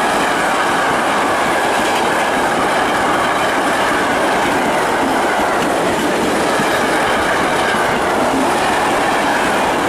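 Freight train wagons rolling past on the track, a steady loud rumble of wheels on rail.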